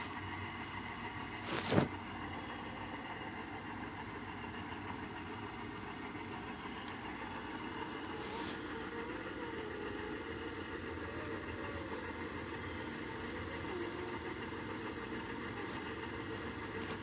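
Domestic cat purring steadily, close to the microphone, with a brief sharp knock about two seconds in.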